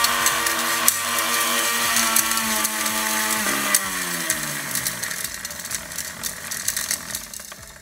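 Mixer grinder motor running with a steady whine and light rattling clicks from the jar. About three and a half seconds in, it is switched off and winds down, its pitch falling as it slows.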